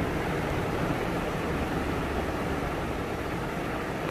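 Steady rushing background noise with a low rumble, unchanging throughout.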